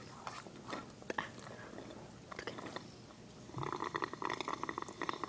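Slurping from a juice box through a straw: a few faint clicks, then, about three and a half seconds in, a rapid rattling slurp.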